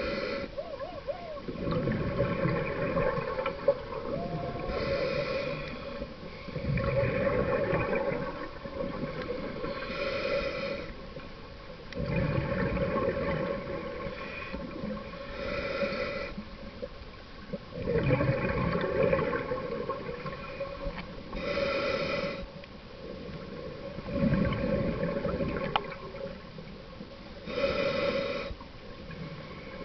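Scuba diver breathing through a regulator underwater. Each breath is a short, higher-pitched inhale followed by a longer, louder bubbling exhale, six breaths in all, about every five to six seconds.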